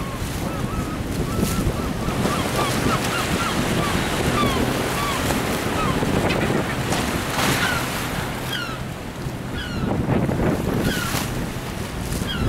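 Wind buffeting the microphone over a choppy sea, with a boat's engine humming steadily underneath. Birds give short, high, curving calls throughout.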